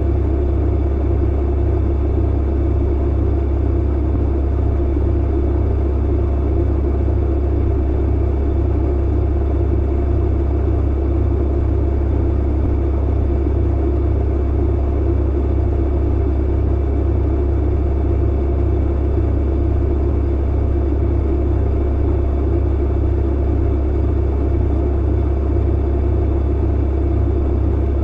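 Clothes dryer running: a steady low rumble with a faint even hum, unchanging throughout.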